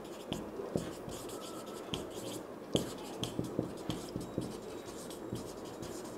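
Marker writing on a whiteboard: a run of short scratchy strokes and light taps at irregular intervals.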